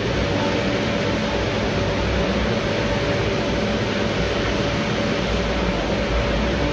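Whirlpool hydrotherapy bathtub running with its jets on: a steady rush of churning, bubbling water with a constant motor hum.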